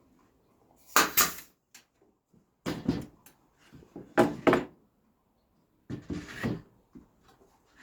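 Wooden knocks and clatter in four short bursts, like boards or a wooden box being handled and set down on a bench.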